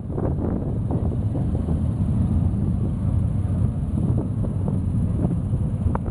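Motorcycles riding past one after another at low speed, their engines running together in a steady low mix with short rises in pitch as riders throttle up.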